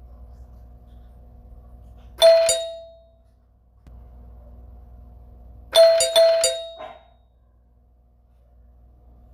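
Doorbell ringing: one bright chime about two seconds in, then a quick run of several chime notes about six seconds in. A steady low hum sits underneath between the rings.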